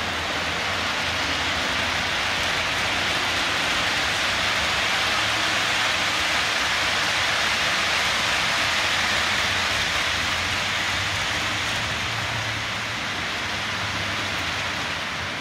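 Model railway freight train's wagons rolling over the track, a steady rushing rumble of wheels on rails that swells as the long train passes closest and eases off near the end.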